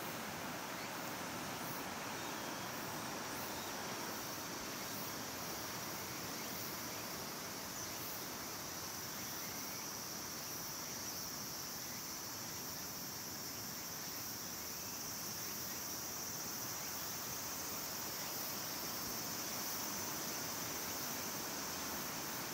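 Steady rush of a fast-flowing river swirling past a rocky bank, with a constant high-pitched insect chorus above it.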